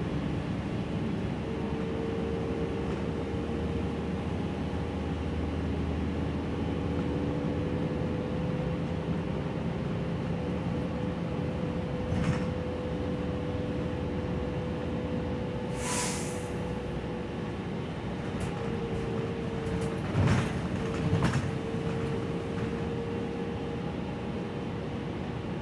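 Cabin sound of a Gillig low-floor city bus driving: the engine and drivetrain drone steadily with a whine held at one pitch. About two thirds of the way through comes a brief hiss, and near the end a couple of sharp knocks or rattles.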